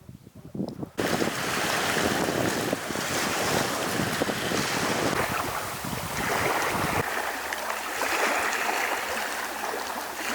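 Lake water washing and lapping at the shore, with wind buffeting the microphone. It comes in abruptly about a second in, and the deep wind rumble drops away about seven seconds in.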